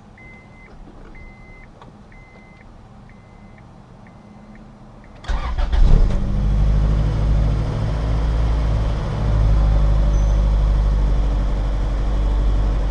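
A high chime beeps about once a second for the first five seconds. Then the 1999 Acura Integra's four-cylinder engine cranks briefly, catches and settles into a steady idle: an easy start on a newly fitted main relay.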